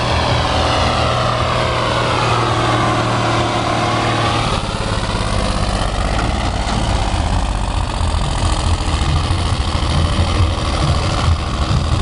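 Ford farm tractor's diesel engine working hard under load as it drags a pulling sled past, its pitch sliding down. About four seconds in the pull ends, and the engine settles to a steadier, slightly quieter rumble as the tractor stands still.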